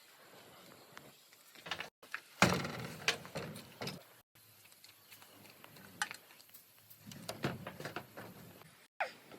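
Scattered knocks and clicks at irregular intervals, the loudest about two and a half seconds in, broken by a few brief moments where the sound cuts out.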